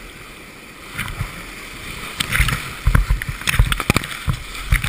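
Whitewater rapids rushing around a kayak, with waves crashing over the bow and splashing onto the camera from about a second in, a dense run of low thumps and sharp splashes that is loudest near the end.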